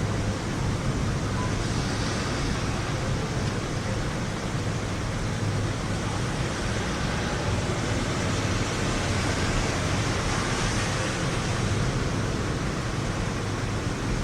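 Steady thunderstorm noise: an even rushing hiss with a deep low rumble underneath and no sharp thunderclap.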